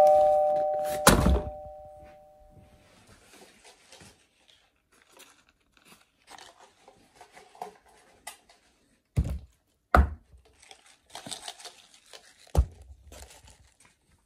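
A two-note chime dying away, a heavy thunk about a second in, then faint rustling and three more sharp thuds in the last third.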